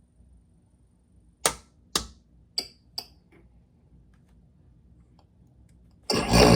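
Four sharp clicks about half a second apart, the last two with a brief high ring. Then a 2012 Lasko 400-series heat pump starts up suddenly about six seconds in: a loud rush that settles into a steady mechanical hum as it comes on in heat mode.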